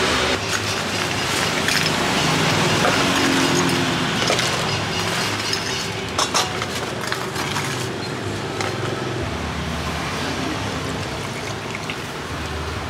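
Steady street traffic noise, with ice cubes clinking sharply as they are scooped into a plastic cup about six seconds in, and juice poured over ice near the end.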